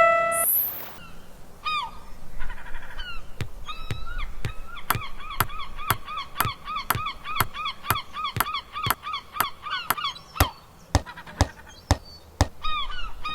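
A run of short, honk-like calls, about two a second, over a steady beat of sharp clicks. The calls stop a little after the middle, and the clicks carry on a couple of seconds longer.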